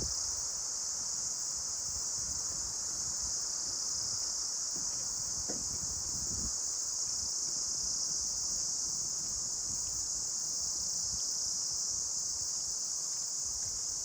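Wind rustling through tree leaves, with soft gusts rumbling now and then. A steady high-pitched insect chorus, like crickets, runs over it without a break and is the loudest sound.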